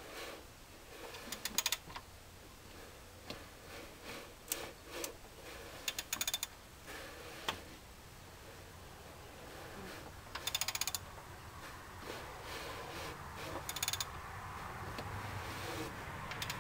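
Ratchet wrench clicking in four short bursts of rapid clicks, with single knocks of tools and metal parts in between.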